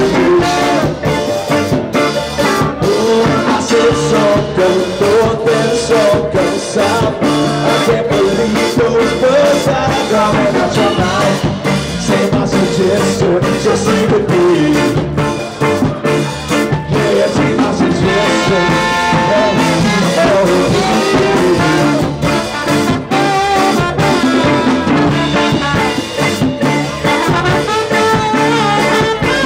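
A live band playing loud amplified music, with electric guitar and a sung vocal line.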